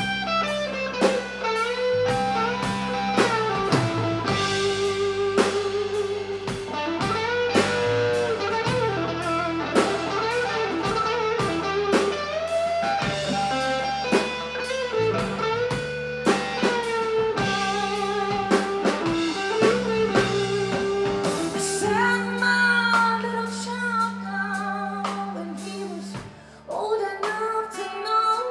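Live blues band with an electric guitar solo of bent, sustained notes with vibrato over bass guitar and drums. Near the end the band drops down and a woman's singing comes back in.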